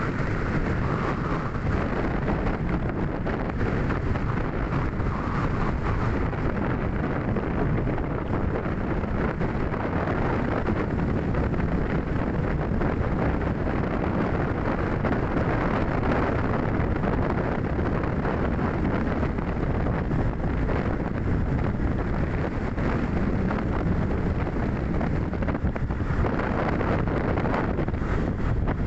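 Steady wind rushing over the microphone, mixed with a low, even rumble of travel along a paved road.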